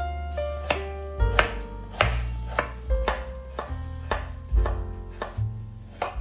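A chef's knife chopping carrots on a wooden cutting board, with a sharp knock about every half second. Background music with held notes and a deep bass plays underneath.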